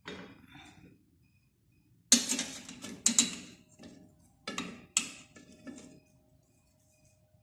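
Kitchenware clattering as it is handled: about five sharp knocks and clanks with a short ring after each, the loudest about two seconds in.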